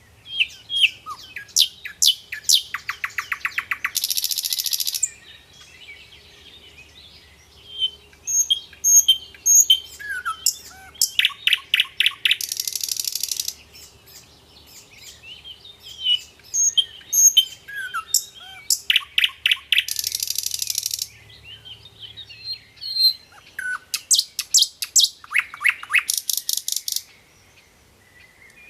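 Nightingale singing four long phrases with short pauses between them. Each phrase is a run of whistles and rapid repeated notes that ends in a fast buzzing trill.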